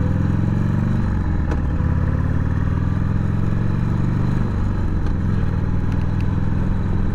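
Harley-Davidson Sportster's V-twin engine running under way, pulling along the road, with brief breaks in the engine note about a second and about four and a half seconds in as it shifts up.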